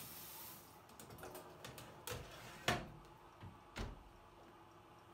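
Scattered light clicks and knocks, like kitchen items being handled and set down, with three sharper knocks in the middle and the loudest about two and a half seconds in.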